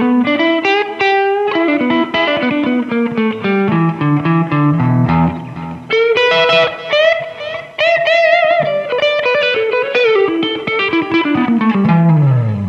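1971 Gibson Les Paul Custom electric guitar played with a clean tone: single-note melodic lines with bent notes, ending in a descending run.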